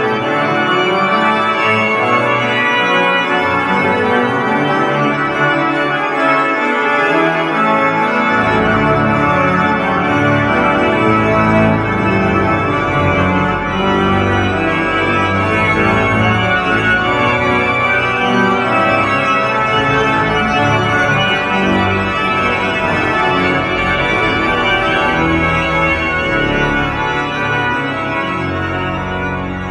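Organ music: full, sustained chords, with deep bass notes coming in about eight seconds in.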